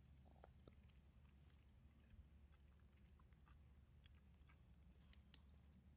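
Near silence: a faint low hum with a few faint, scattered ticks.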